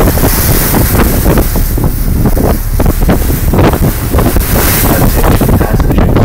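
Loud wind buffeting the microphone on a ferry's open bow, over the rushing wash of the hull pushing through choppy water and throwing up spray.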